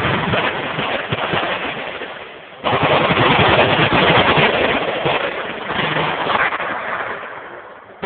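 Many machine guns firing at once in a dense, continuous rattle. A first long volley fades out, then a second one starts suddenly about two and a half seconds in and slowly dies away.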